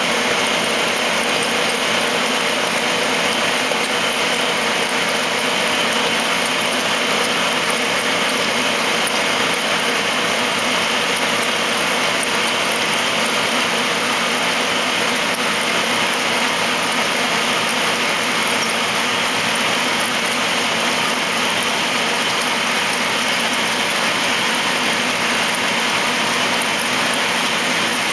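MAHO MH-1000 C/K universal milling machine cutting aluminium: a steady, even, hissing cutting noise with no pauses.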